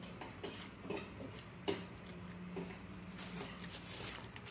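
Close-up eating sounds: chewing and biting food held in the fingers, with a few sharp crunchy clicks and mouth smacks, the loudest about a third of the way in.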